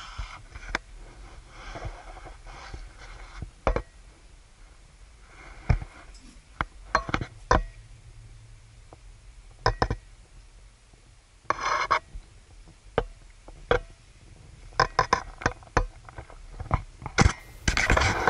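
Handling noise on a camera rig, picked up by an action camera's built-in microphone: irregular sharp clicks and knocks, some in quick clusters, over a faint low hum.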